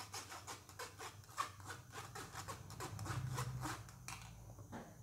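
A metal spoon scrapes and pushes thick blended tomato-cashew masala through a metal mesh strainer in quick, repeated rubbing strokes, about three or four a second, fading out about four seconds in. This is the straining step that holds back the tomato seeds and skins.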